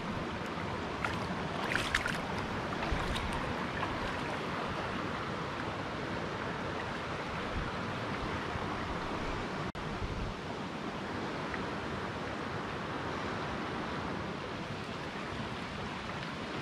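River rapid rushing over rocks at low summer water, a steady hiss. There are a few short clicks in the first two seconds, and the sound drops out briefly just before the middle.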